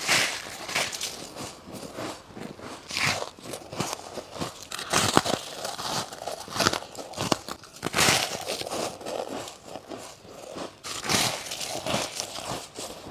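Close-up bites into hard frozen freezer frost and thin ice, each one a sharp crunch that breaks into crackling, repeated every two to three seconds with smaller crackles between.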